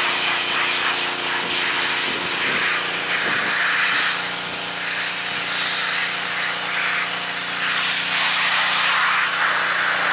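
Pressure washer blasting a jet of water along a car's rear-window rubber seal: a steady loud hiss of the spray over the even hum of the washer's motor and pump.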